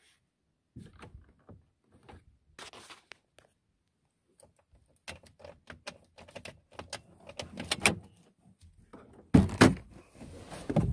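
Footsteps and rustling through dry grass with knocks from the handheld phone: sparse small knocks at first, a quicker run of crisp clicks and crackles from about halfway, then a loud rustling burst near the end.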